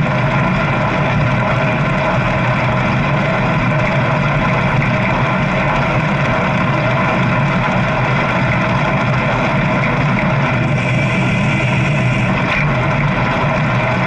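Motorcycle ridden at a steady speed: the engine's even drone mixed with wind rushing over the action camera.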